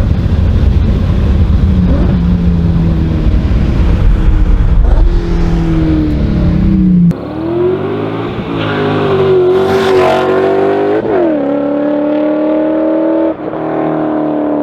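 BMW S62 V8 of an E39 M5 revving and accelerating. First comes a deep, bassy run with the engine note rising and falling. After a cut, the engine pulls hard with its pitch climbing, dropping back sharply at gear changes twice.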